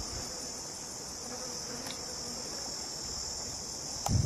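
Steady high-pitched drone of insects, with a brief low thump near the end.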